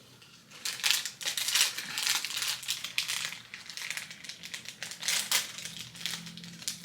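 Crinkling of gift packaging being handled and opened, a dense run of irregular rustles and crackles.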